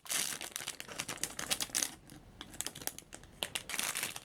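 Plastic packaging crinkling as a squishy toy is handled, a dense run of irregular crackles.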